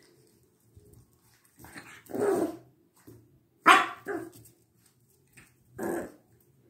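Boston Terrier barking: a few separate barks spread over several seconds, the sharpest and loudest about halfway through.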